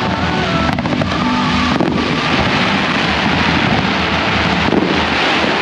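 Fireworks display: a dense, continuous crackle and rumble of bursting fireworks, with a couple of sharp bangs in the first two seconds.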